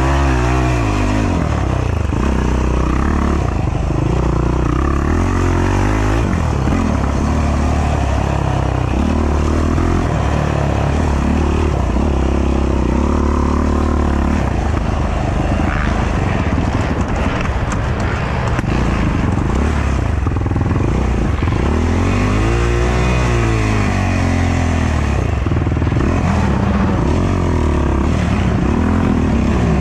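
A racing ATV's engine revving up and down with the throttle over a twisting dirt trail, its pitch rising and falling every few seconds, with some rattle and scrape from the quad.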